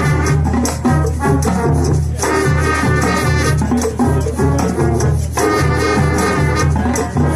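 High school marching band playing loudly: brass section over drumline and percussion, with a steady beat.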